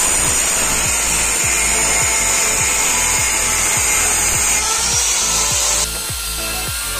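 Angle grinder with a thin cutting disc cutting into the hardened steel of a motorcycle brake-disc knife blank: a steady high whine over a grinding hiss. About six seconds in the whine drops away and the sound grows a little quieter as the cut eases.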